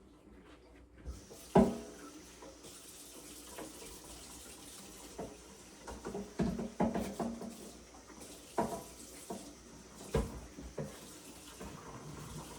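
Water running from a tap into a sink while a drink-can tray is washed, with several knocks and clatters of the tray against the sink. The loudest knock comes about a second and a half in.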